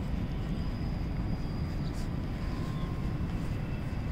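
Steady low rumble of outdoor background noise, with a faint thin high tone for a second or so.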